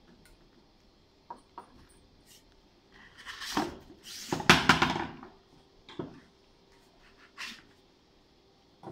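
A cardboard paper core tube handled and slid onto the core cutter's metal mandrel: a couple of light clicks, then scraping and rubbing of cardboard on metal, loudest about four and a half seconds in, followed by a few single knocks.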